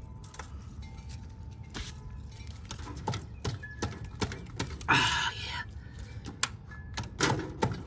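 Scattered metallic clicks and clinks of a socket wrench being worked on a motorcycle's oil drain plug, with a short rustle about five seconds in as a gloved hand brushes the aluminium foil drip pan.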